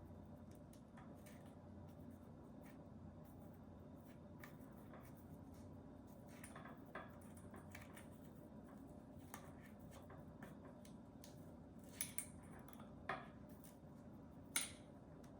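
Faint scattered clicks and taps of tweezers working at the end of a hollow rubberized Roomba brush, pushing foam strips into place, with a few sharper clicks near the end.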